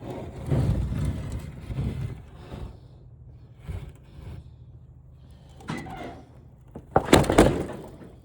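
A large flat-screen TV being flipped over: its plastic and metal housing scraping and rustling, with a loud clatter about seven seconds in as it is set down.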